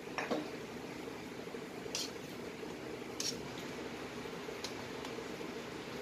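Spoon stirring thick tomato spaghetti sauce in a stainless steel frying pan: wet squelching, with a few sharp clicks of the spoon against the pan, over a steady low hiss.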